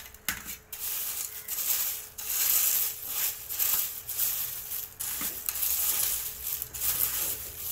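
Crisp fried corn flakes (makyacha chivda) rustling and crunching as a hand tosses them in a metal bowl, in uneven waves.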